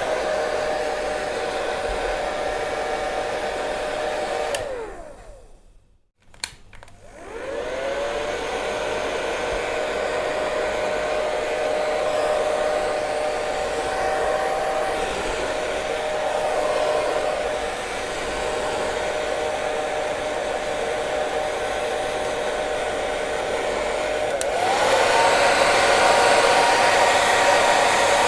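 A hair dryer's fan motor runs with a steady whine. About four seconds in it winds down to silence. A click follows, and it spins back up. Near the end the whine steps up to a higher pitch and gets louder.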